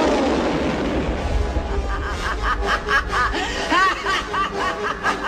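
Animated film soundtrack: a falling rush into a low rumbling blast, under dramatic music, then a voice cackling in short repeated bursts from about two seconds in.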